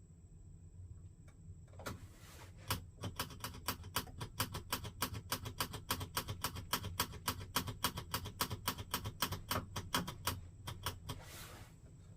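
Rapid, even clicking of the spark igniter on a Dometic 3-way fridge's gas burner, about four clicks a second for around eight seconds. A short hiss comes just before the clicking starts and again just after it stops.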